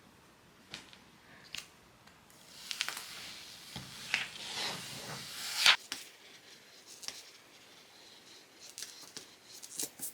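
Packaging being handled and torn open: rustling and tearing with a few small clicks, one sharp knock a little past the middle, then scattered light clicks and taps.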